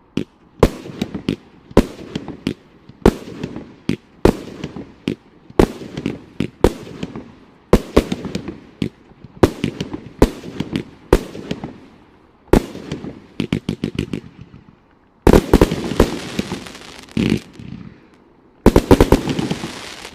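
A 66-shot mixed-effects 1.4G fireworks cake firing. Sharp shot reports come about one or two a second, each with a fading tail. There is a quick run of shots about thirteen seconds in, and two dense volleys near the end as the cake finishes.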